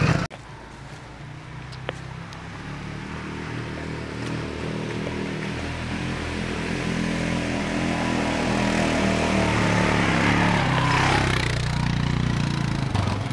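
Garden tractor engine running steadily, getting louder as the tractor draws nearer, with a brief rise in revs near the end.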